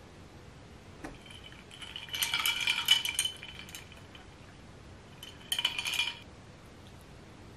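Rice paddle clinking and scraping against ceramic, the rice bowl and clay pot, as rice is scooped and served; the ceramic rings with each knock. Two bursts: one about two seconds in lasting around a second, a shorter one near five and a half seconds.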